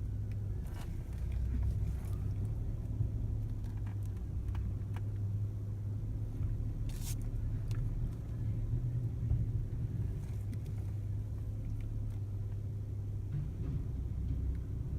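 Steady low mechanical rumble of a running engine or motor, with a few faint clicks.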